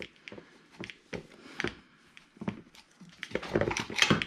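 Scattered small clicks and taps of hands working a recoil starter's pull cord and handle, with a denser cluster of knocks about three and a half seconds in.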